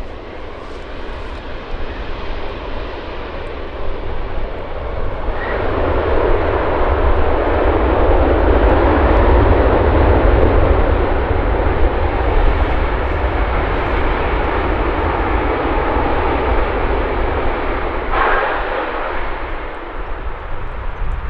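Boeing 757-200 freighter's jet engines on landing: a steady rush that surges suddenly about five seconds in as reverse thrust is applied after touchdown, stays loud through the rollout, then eases off near the end as the aircraft slows to a stop.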